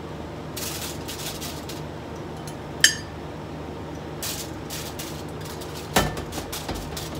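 Metal kitchen tongs scraping and clicking as roasted chicken pieces are moved from a bowl onto a foil-lined oven rack. A sharp ringing clink comes just under three seconds in and a knock about six seconds in, over a steady low hum.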